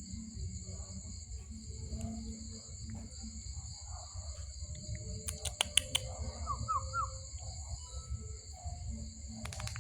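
Steady high-pitched insect chorus over a low rumble, with a few sharp clicks about halfway through and three short rising squeaks just after.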